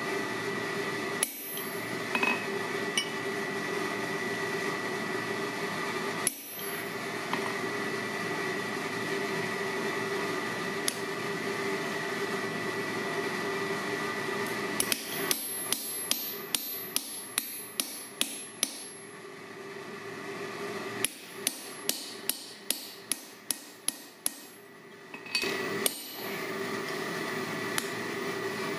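Hand hammer striking a chisel held on glowing steel on an anvil, cutting into a forged claw hammer blank. There are a few single blows at first, then from about halfway quick runs of ringing blows about three a second, over a steady hum.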